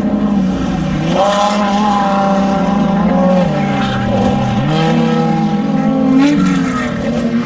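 Off-road desert race vehicle engines running hard, at least two at once, their pitch rising and falling as they rev and shift, with brief gritty hiss from the tyres on dirt.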